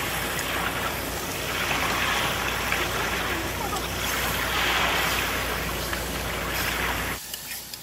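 Raw cut meat sizzling as it goes into hot olive oil and fried onions in a pressure cooker pot and is stirred in. The steady hiss swells twice and cuts off near the end.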